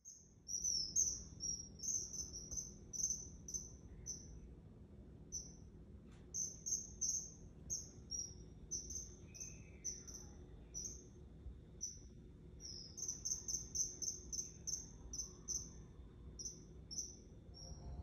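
Common kingfisher calling: short, high, thin piping notes repeated several times a second in uneven runs.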